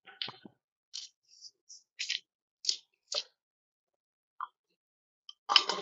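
Hands handling parts of a labeling machine: a series of short, sharp clicks and rustles, with a louder clatter near the end.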